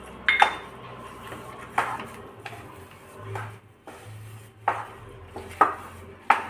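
Wooden spatula stirring thick upma with peanuts and cashews in a nonstick pan, knocking and scraping against the pan about six times at an uneven pace. The loudest knocks come near the start and near the end.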